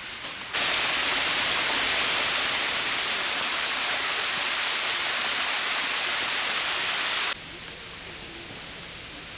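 Steady rushing rain, an even hiss that comes in suddenly and loud about half a second in and cuts off abruptly near the end, leaving a softer rain hiss.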